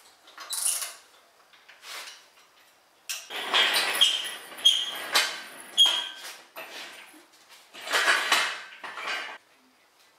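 Metal tools and engine parts clinking and clanking as an engine is taken apart, a series of sharp knocks, some ringing briefly, busiest in the middle of the stretch and again near the end.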